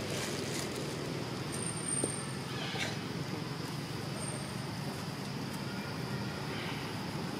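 Steady outdoor background rumble, like distant road traffic, with two brief faint high chirps about two and four seconds in.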